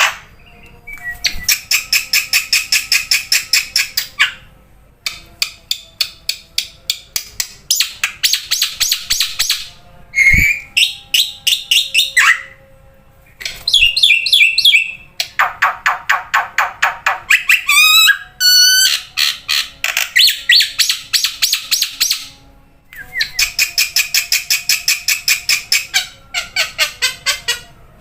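Black-winged myna (jalak putih) calling loudly: bursts of a few seconds of fast, harsh repeated notes, several a second, broken by short pauses and a few whistled glides.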